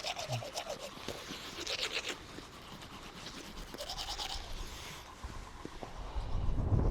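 Teeth being brushed with a toothbrush: quick back-and-forth scrubbing strokes in bursts. Wind noise picks up near the end.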